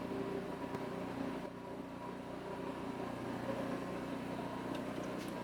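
Steady mechanical hum made of several pitched tones, like a motor or engine running.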